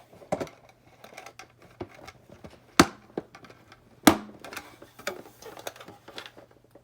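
Plastic toy-closet parts being handled and pushed together, with scattered light clicks and taps and two loud sharp snaps a little over a second apart near the middle.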